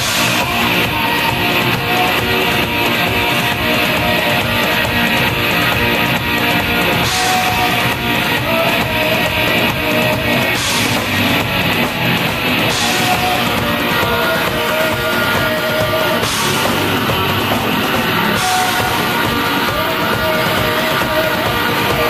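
Live rock band playing loud and steady: electric guitar over a drum kit.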